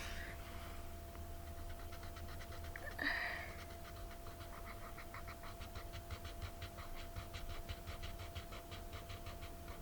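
Felt-tip marker scribbling back and forth on paper while colouring in a shape, a rhythmic scratching of about five or six strokes a second.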